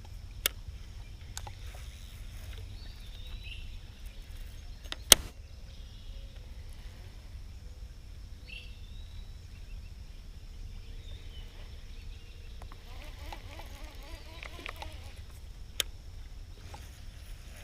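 Outdoor ambience on a fishing boat: a steady low rumble with faint bird or insect chirps, broken by a few sharp clicks or taps, the loudest about five seconds in.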